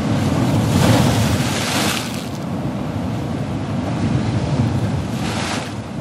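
Ocean surf: a steady low rumble of water, with a wave breaking and washing in with a loud hiss about a second in and a shorter wash near the end.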